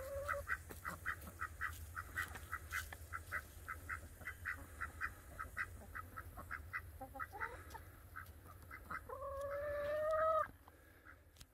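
Ducks quacking now and then over a steady, fast chirping of about five short notes a second. About nine seconds in, a longer, louder call swells for over a second and cuts off suddenly.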